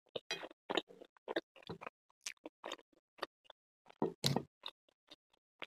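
Close-miked chewing of pizza: irregular wet mouth clicks and smacks, a few each second, louder for a moment about four seconds in.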